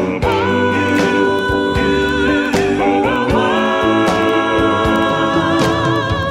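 Background music: a song with a singing voice holding long, wavering notes over a steady beat.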